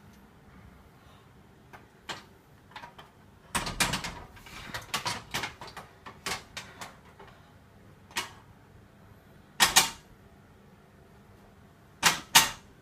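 A run of short clicks and knocks from the loaded barbell and rack as a powerlifter settles the bar on her back, with a few sharp bracing breaths near the end.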